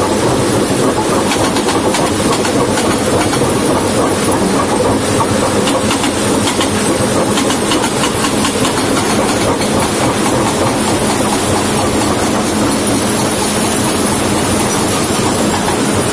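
Hydraulic breaker on a CAT excavator hammering a stone masonry wall: a loud, continuous rapid clatter of blows.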